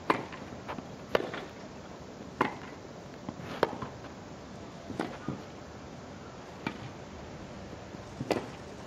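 Tennis rally: a ball struck back and forth with racquets, seven sharp strikes about every second and a half, with softer thuds between them.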